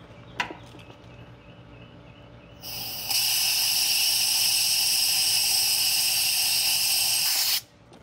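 R-454B refrigerant hissing steadily out through the charging hoses and manifold, purging the air from the hoses so it cannot contaminate the charge. A click comes first. The hiss starts about two and a half seconds in, builds quickly, and cuts off sharply near the end as the purge is closed.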